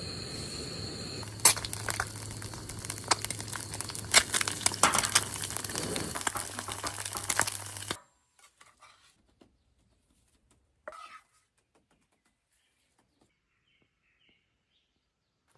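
Rustling and crinkling handling noise with many sharp clicks, over a steady insect buzz, cutting off suddenly about eight seconds in to near quiet with a few faint taps.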